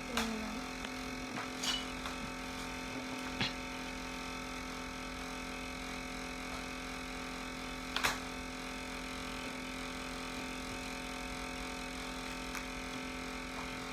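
Steady electrical room hum with a few brief clicks and knocks of something being handled, the loudest about eight seconds in.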